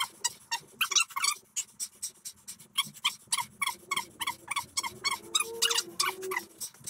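Rapid panting, about four to five short breaths a second without a break, with a faint wavering whine in the second half.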